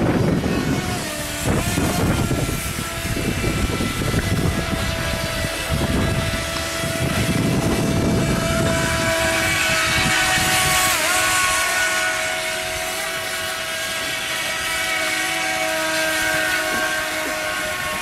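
Electric motor of an FT007 radio-controlled speedboat whining steadily as it runs on the water, its pitch dipping briefly about eleven seconds in. Wind rumbles on the microphone in gusts during the first several seconds.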